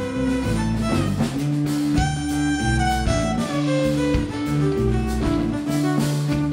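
Rock-blues band playing an instrumental passage: a violin carries the lead with long bowed notes over bass guitar, electric guitar and a drum kit.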